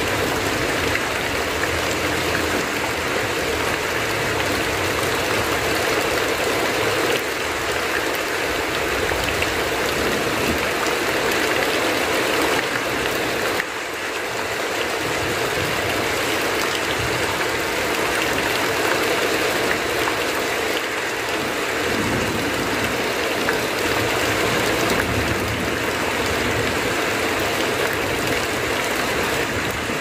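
Heavy rain falling steadily, with runoff pouring off a roof edge in streams.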